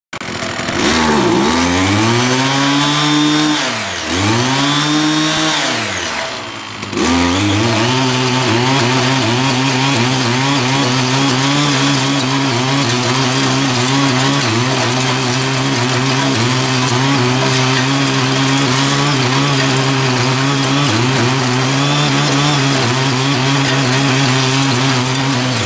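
Ching Yee CY50 mini tiller's 48.6cc engine revving up and dropping back twice, then held at high speed with a slight waver from about seven seconds in, under load as its tines dig into hard, gravelly soil.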